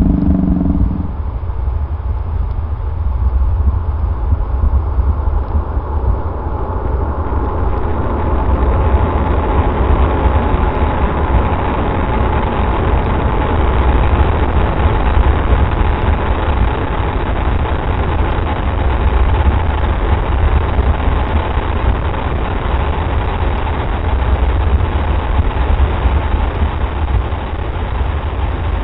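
Falcon 9 first stage's nine Merlin engines roaring at liftoff: a deep, steady rumble that gets brighter and fuller about eight seconds in.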